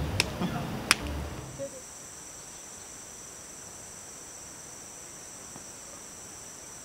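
Two sharp clicks in the first second, then a steady high-pitched insect chorus from about a second and a half in.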